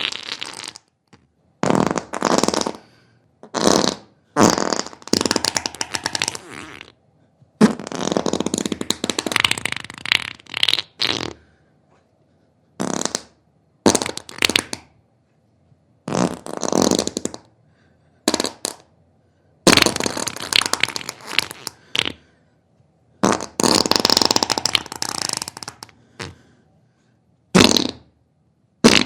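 A series of about a dozen fart sounds, each lasting from under a second to about three seconds, with short silences between them. Most have a rapid fluttering rattle.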